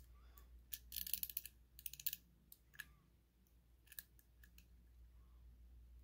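Steel tweezers clicking and scraping against the pins, springs and housing of a Mul-T-Lock cylinder as a driver pin and spring are fished out of a pin chamber. A quick run of small metallic clicks comes about a second in and again around two seconds, followed by a few single ticks.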